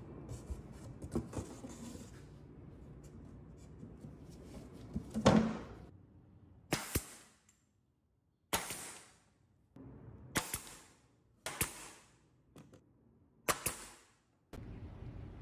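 Low scraping and small knocks as a thin dust board is set in place, then a pneumatic nail gun firing six single shots into it, about one to two seconds apart. The first shot is the loudest, and each ends in a brief hiss of air.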